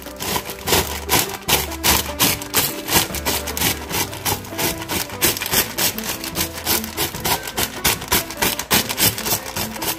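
Lay's Classic potato chips being crushed by hand inside their sealed plastic bag: dense, irregular crunching and crackling with the bag crinkling.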